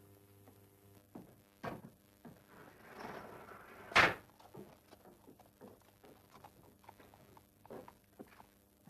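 A small door shut with one loud thump about four seconds in, right after a short scrape, amid light footsteps and scattered knocks.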